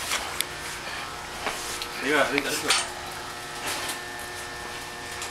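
Room tone of a ship's compartment: a steady machinery hum with a few light clicks and knocks near the start and a brief voice about two seconds in.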